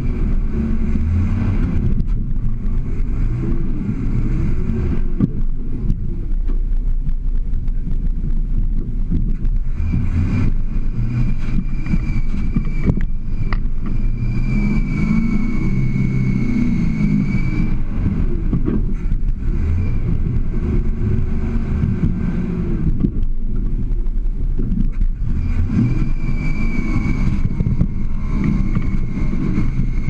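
Toyota FJ40 Land Cruiser's engine working at crawling speed, revving up and falling back again and again as the truck climbs over rock ledges. A high steady whine comes in for several seconds at a time.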